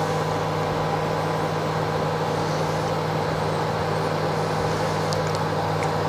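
Samsung 30-litre grill microwave oven running in Grill Fry mode, preheating oil on its plate, with a steady low hum. A couple of faint clicks near the end.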